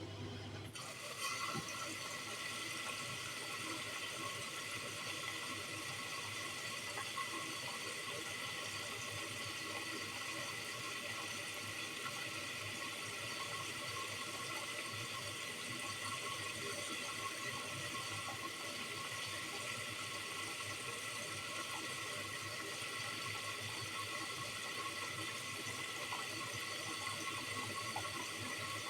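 Bosch Series 4 washing machine filling with water for its first rinse: the drain pump's low hum stops under a second in and the inlet valve opens, letting water rush in with a steady hiss.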